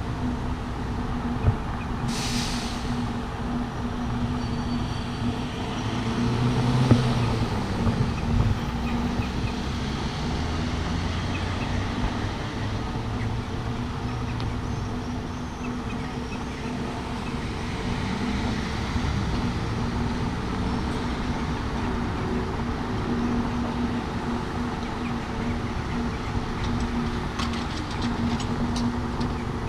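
Street traffic: a heavy vehicle running close by with a steady hum and low rumble, a short hiss about two seconds in, and a few light clicks near the end.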